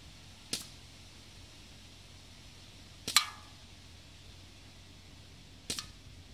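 Three sharp shots from a low-powered gun at a hanging aluminium drink can, about two and a half seconds apart, the middle one the loudest.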